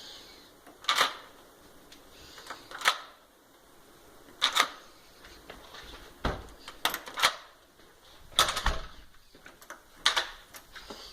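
A door's dead-bolt lock being worked back and forth, giving a series of irregular sharp metallic clicks and clunks as the bolt throws and retracts. The lock is stiff to turn, and the bolt rubs against the face plate.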